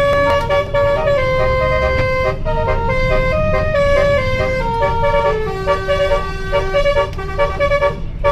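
Indonesian bus 'telolet' musical horn playing a tune: held notes stepping from pitch to pitch, changing about halfway through to a repeating figure of short notes, over a low rumble.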